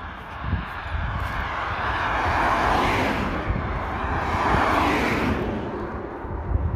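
Vehicles passing on the road alongside, two swelling and fading whooshes, one about two to three seconds in and another around five seconds in, over a low rumble of wind on the microphone.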